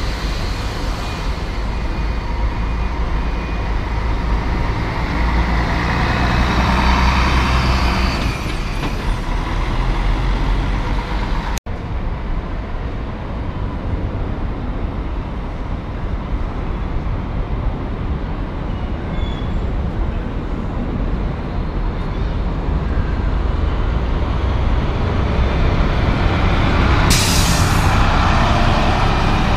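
Diesel engines of double-decker long-distance coaches pulling out and driving past close by. The engine rumble swells as each one passes, and there is a short sharp hiss near the end.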